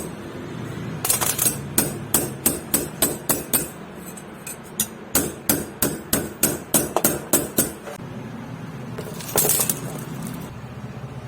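Hammer blows on metal in two quick runs of about three to four strikes a second, separated by a short pause, then a brief burst of noise near the end.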